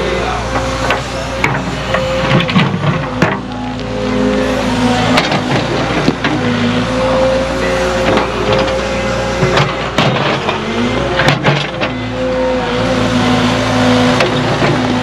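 Cat mini excavator's diesel engine running under load, its note shifting as the hydraulics work the boom and bucket, with scattered clanks and knocks as the bucket digs and dumps dirt and rocks.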